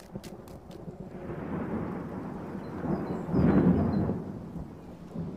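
A rumble of thunder that builds for a couple of seconds, is loudest about three and a half seconds in, then dies away.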